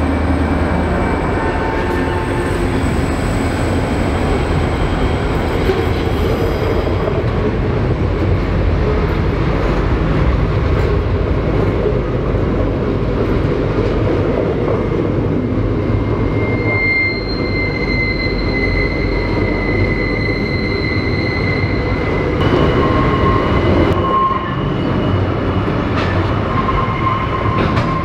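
Freight train wagons rolling past with a steady rumble. A little past halfway high-pitched wheel squeal sets in, its pitch shifting lower near the end.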